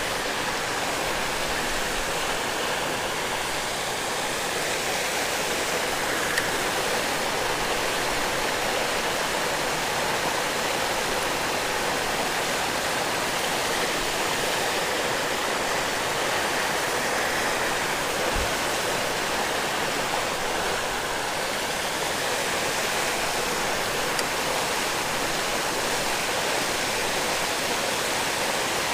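Little creek waterfall: water spilling steadily over a low drop into a pool, a constant rushing splash.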